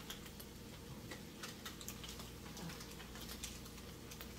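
Food cooking slowly in a pan on the stovetop, giving faint, irregular small pops and crackles, over a steady low hum.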